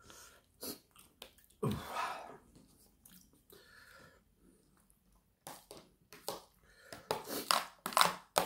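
Spoon scraping and knocking salad off one plate onto another: a scatter of short scrapes and knocks that come thick and fast in the last three seconds. There is a louder rustling sound about two seconds in.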